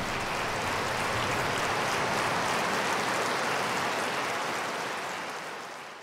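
A large hall audience applauding steadily, a dense even clapping that fades out near the end.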